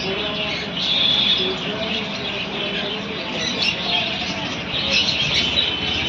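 A dense chorus of many small caged birds chirping and twittering at once, a continuous high chatter that swells about a second in and again near the end.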